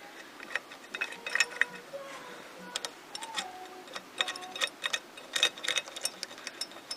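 Ratchet wrench clicking in short, irregular runs while nuts and bolts on a motorcycle exhaust mount bracket are tightened.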